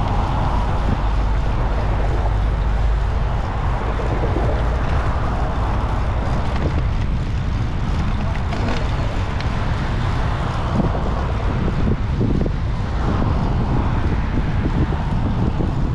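Steady wind noise buffeting the microphone of a GoPro mounted low on a moving bicycle, mixed with the rumble of the tyres on the path.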